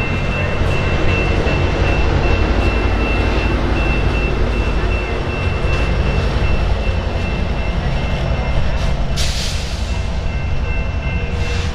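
Amtrak California bilevel passenger train passing close by, with its EMD F59PHI diesel locomotive pushing at the rear: a steady heavy rumble of the wheels on the rails and the diesel engine. A short hiss comes about nine seconds in, and a smaller one near the end.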